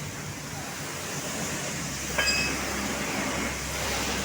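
Steady road traffic noise from passing vehicles, with one brief high-pitched tone about two seconds in.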